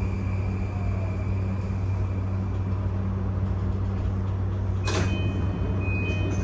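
Inside an E235-1000 series commuter train car: a steady low electrical hum, with a sharp clack about five seconds in followed by a brief high two-tone beep.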